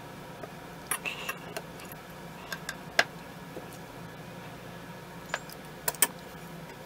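Scattered small clicks and light knocks of steel rifle parts being handled and fitted together during reassembly of a K98k Mauser, over a steady low hum. The sharpest click comes about three seconds in, and a quick double click follows near the end.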